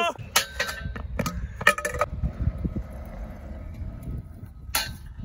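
Freestyle scooter rolling on skatepark concrete with a low rumble, broken by several sharp metallic clacks and knocks from a trick attempt on a rail; the loudest knock comes near the end.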